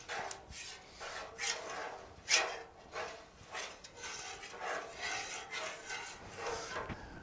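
Metal spatula scraping across a hot Blackstone flat-top griddle, spreading oil over the steel surface in a series of irregular rasping strokes, roughly one a second.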